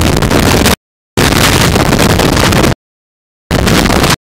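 Tornado-force wind blasting a surveillance camera's microphone: a loud, steady rush of noise that drops out abruptly to dead silence three times, in chunks of about a second each.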